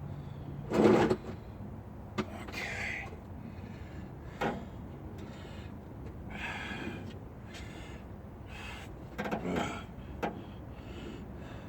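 Scattered knocks and clicks of hand tools and bolts against an engine as intake manifold bolts are fitted, with a louder thump about a second in and a cluster of knocks near the end, and soft rustling between.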